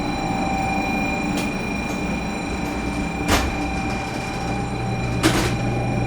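500 series Shinkansen standing at a platform, heard from on board. A steady electrical whine of several high tones comes on at the start and holds, and three sharp knocks fall about two seconds apart, the last two loudest.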